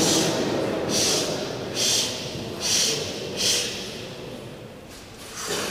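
Four short, sharp, hissing breaths less than a second apart, as a deadlifter bent over the bar braces himself before the pull.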